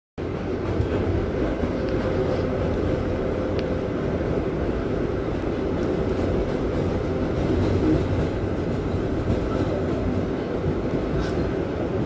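Inside a #7 subway car while the train runs: a steady rumble with a faint, even hum.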